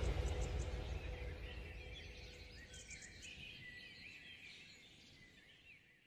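Birds chirping faintly over the fading tail of the background music, everything dying away to silence a little over halfway through.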